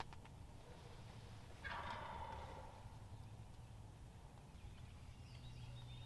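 A wild turkey gobbler gobbling once, about a second and a half in, a rattling call lasting about a second.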